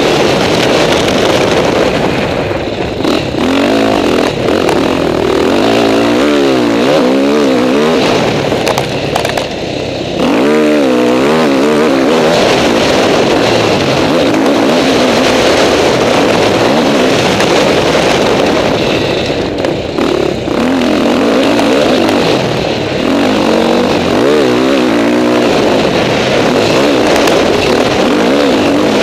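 KTM 450 SX-F four-stroke single-cylinder motocross engine heard up close from the bike, its pitch rising and falling over and over as the throttle is worked hard. The level drops briefly about ten and twenty seconds in, and wind rushes on the microphone throughout.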